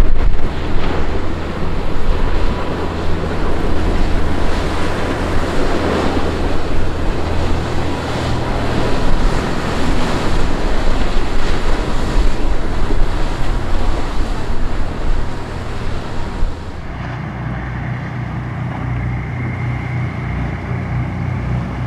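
Boat engines running at speed as a dive boat passes close by, with the rush of its bow wash and wind buffeting the microphone. About 17 seconds in the sound changes suddenly to a quieter, steadier low engine drone from a large party fishing boat cruising past.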